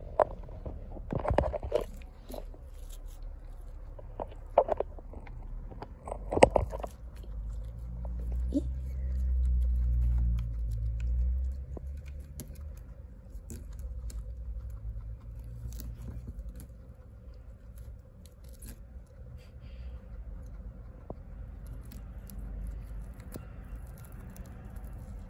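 A small pet chewing and crunching lettuce leaves through cage bars, with several sharp clicks and knocks in the first few seconds and a low rumble for a few seconds around the middle.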